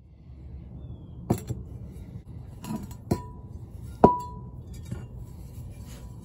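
Rusty cast iron frying pan knocked against a hard surface as it is handled and turned over: several sharp clinks, two of them leaving a short metallic ring.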